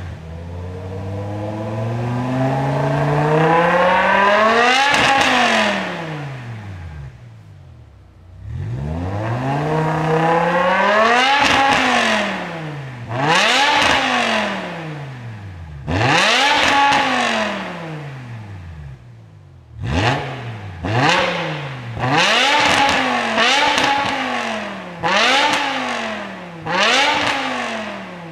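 BMW M6 E63's 5.0-litre S85 V10 revved hard while parked, through an iPE Innotech valved performance exhaust. First one long, slow climb in revs for about five seconds that falls back, then a few shorter revs, then a quick run of sharp throttle blips about once a second near the end.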